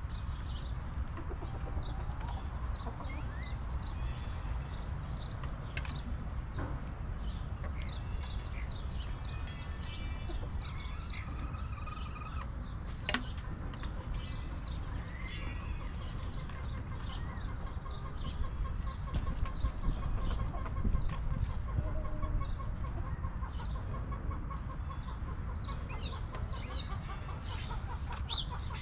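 Backyard hens clucking, with frequent short high chirps scattered throughout and a steady low rumble underneath.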